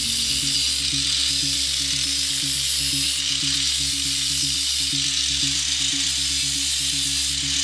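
Background electronic music with a fast, evenly repeating low bass pattern and a steady bright hiss over it.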